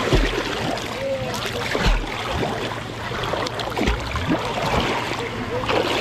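Sea water splashing and sloshing right at a waterproof-boxed action camera held at the surface by a swimmer, his strokes churning the water. A low thud comes about every two seconds.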